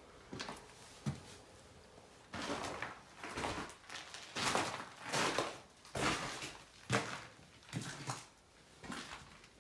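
Footsteps crunching over fallen plaster and paint debris on a hard floor, a little more than one step a second, starting about two seconds in, with a few light knocks before that.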